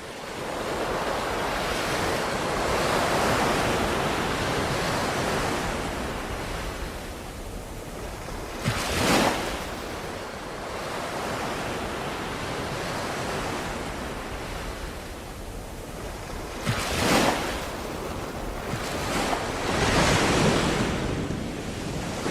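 Ocean waves washing ashore: a steady rush of surf that swells in at the start, with louder breaking waves about 9 seconds in, about 17 seconds in and again around 20 seconds.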